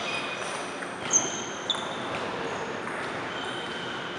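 Celluloid table tennis ball struck and bouncing in a large hall, with two sharp clicks about a second in and half a second apart. Short high squeaks of sneakers on the hardwood gym floor come and go over a steady room hum.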